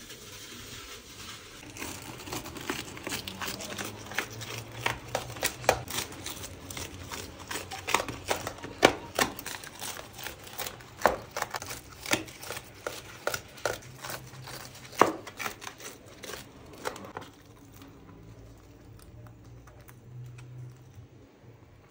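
Dry, crisp material crinkling and tearing by hand, with many sharp crackles, which thin out about seventeen seconds in.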